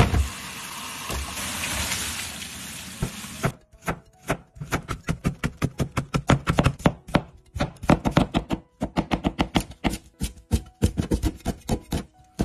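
Kitchen tap running onto a carrot and cucumber in a plastic colander for about three and a half seconds, then a cleaver chopping rapidly on a cutting board, fast steady knocks with a few short pauses, as carrots are cut into fine shreds and red chilies are chopped.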